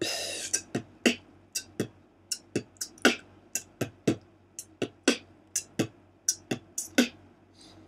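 Human beatboxing: a steady beat of mouth-made bass kicks and hi-hats, about three sounds a second, with the deep kicks alternating with crisp, high hi-hat ticks.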